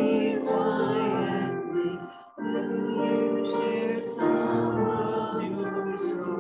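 A hymn being sung with piano accompaniment: voices hold long notes with vibrato, with a short break about two seconds in before the next phrase.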